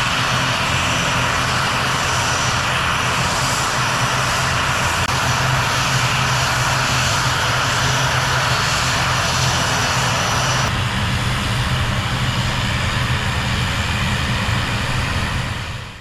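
Twin turboprop engines and propellers of an ATR 72-500 airliner running steadily, a loud even hum under a hiss. It changes slightly about two-thirds through and fades out at the end.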